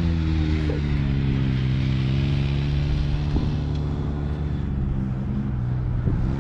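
A vehicle engine running steadily at a constant speed, its pitch easing down slightly in the first second or two and then holding.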